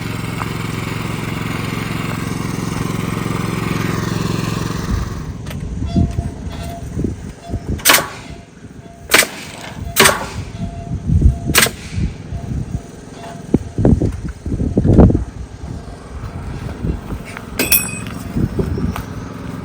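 Repair work on a metal-sided building: a motor runs steadily and cuts off about five seconds in, then a run of sharp, loud bangs and lower knocks follows, four of them standing out.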